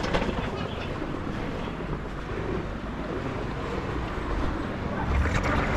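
Steady wind rushing over the microphone of a GoPro Hero 11 action camera on a moving bicycle, with a low rumble and no distinct tones.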